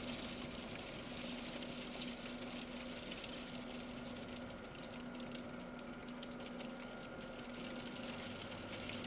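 Freezing rain and ice pellets hissing and ticking steadily, over a constant low hum.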